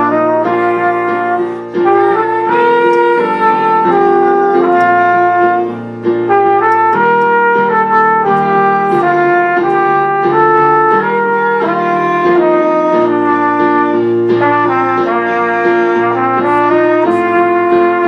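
Instrumental music: a brass-led melody of held notes moving over chords and a steady bass note.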